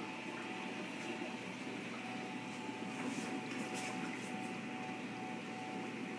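Steady hum and water wash of a reef aquarium's pumps and circulation, with a constant tone and a few faint high ticks about halfway through.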